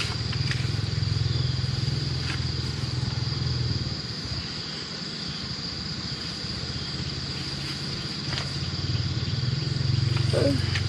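A steady low motor hum that fades for a few seconds in the middle and then returns, under a continuous high, thin insect drone.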